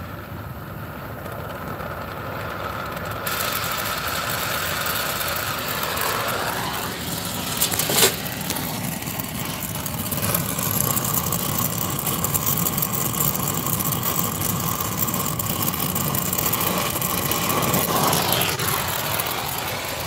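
Brazing torch flame running with a steady hiss while it heats copper refrigerant tubing for a brazed joint, a whistle-like tone in it dropping in pitch twice. A sharp click about eight seconds in.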